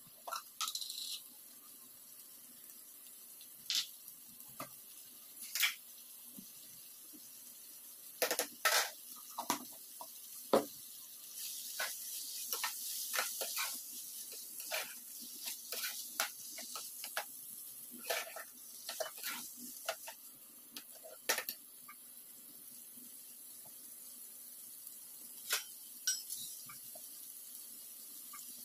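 Slotted metal spatula scraping and knocking against a nonstick pan as frying bitter gourd masala is stirred, in irregular clusters of clicks and scrapes, thickest through the middle. A steady faint hiss of frying runs under them.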